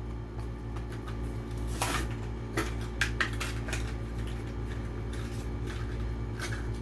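A Hot Wheels car's blister-card packaging being opened by hand: crinkling plastic and cardboard with scattered sharp clicks.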